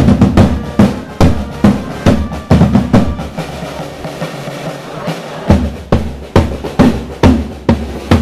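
A procession drum corps of snare and bass drums beats a steady marching rhythm with rolls. The strokes soften for a couple of seconds in the middle, then come back loud.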